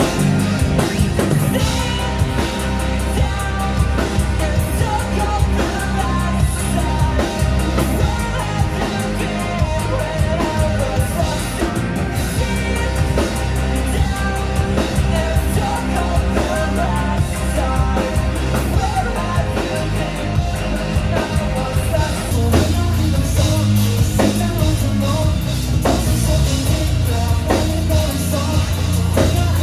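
Live rock band playing loud through a club PA: drums, distorted electric guitar and shouted singing, with a heavy, booming bass.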